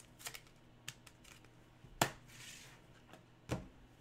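Plastic card sleeves and holders handled on a desk: a few sharp clicks and taps, the loudest about two seconds in, followed by a soft rustle and a duller knock on the desk near the end.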